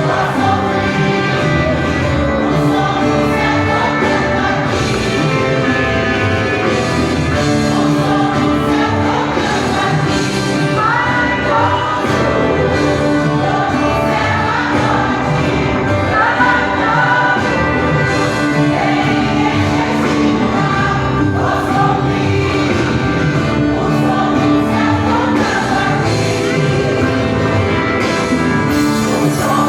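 Choir singing a Christmas cantata with instrumental accompaniment, steady and continuous.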